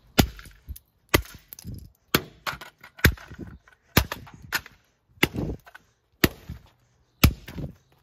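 Claw hammer striking a ceiling fan controller's plastic board and transformer on concrete: about eight hard blows, roughly one a second.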